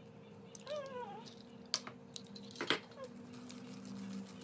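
A hen's egg cracked against the rim of a glass mixing bowl: two sharp taps, about two and three seconds in, the second the louder. Before them, about half a second in, a short wavering cry rises and falls, like a cat's meow.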